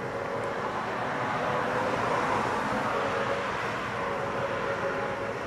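Road traffic: a car passing on the highway, its tyre noise swelling to a peak about two seconds in and then fading.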